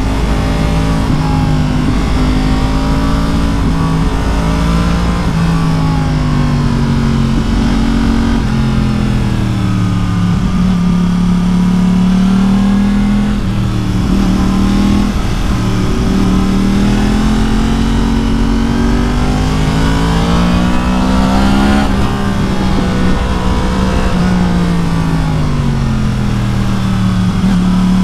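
Yamaha MT-10's crossplane inline-four engine running through an Akrapovic exhaust while riding. The engine note climbs and falls repeatedly as the rider accelerates, changes gear and rolls off the throttle for bends.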